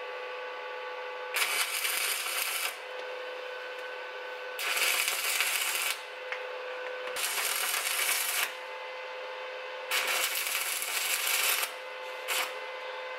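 Stick (arc) welding: the electrode crackles and sizzles in four bursts of one to two seconds each, with a short fifth burst near the end, as short welds are run. A steady hum sits underneath.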